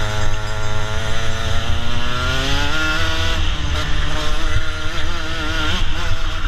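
Racing kart engine heard from onboard at speed, its pitch climbing steadily for nearly three seconds under acceleration, then wavering and dipping as the driver comes off the throttle for the next corner. Wind rumbles on the microphone underneath.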